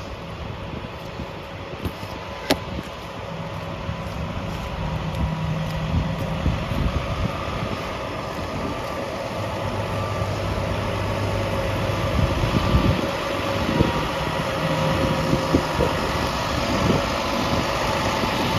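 A motor vehicle's engine running and growing gradually louder, over a steady hiss.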